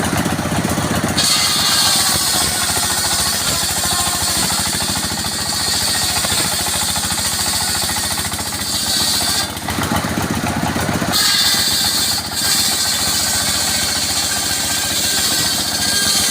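Engine-driven sawmill saw cutting acacia wood. The engine runs steadily throughout. A loud high cutting hiss starts about a second in, stops for a second or two past the middle, then starts again.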